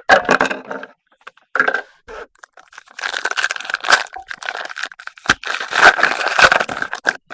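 A trading card pack wrapper being torn open and crinkled, in several rustling bursts with the longest near the middle and toward the end.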